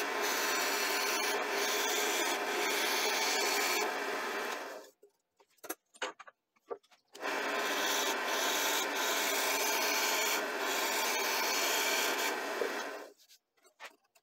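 Roughing gouge cutting a spinning wooden blank on a wood lathe: a steady scraping hiss of shavings being taken off. It comes in two long passes of about five seconds each, with a short stop between them, and a few faint clicks follow near the end.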